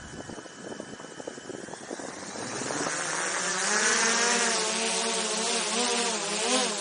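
DJI Mavic 2 Zoom quadcopter's motors and propellers spinning up. A faint high whine and irregular crackle give way over the first few seconds to a loud, steady propeller hum, whose pitch wavers as the motors adjust.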